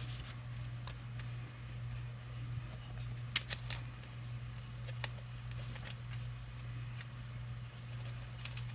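Football trading cards being handled and shuffled through by hand: soft slides and light clicks, with a small cluster of sharper clicks about three and a half seconds in, over a steady low hum.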